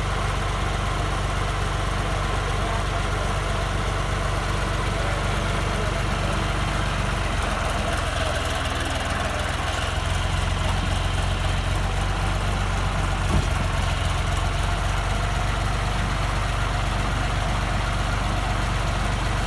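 John Deere 2240 tractor's three-cylinder diesel engine idling steadily, a little louder from about ten seconds in, with a single short knock about three seconds later.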